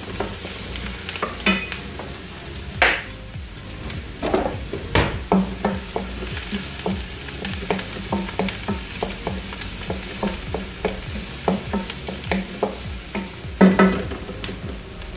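Chopped onion and garlic sizzling in hot oil in a large wok while a wooden spatula stirs them, scraping and knocking on the pan a couple of times a second, with louder knocks about three and five seconds in and near the end.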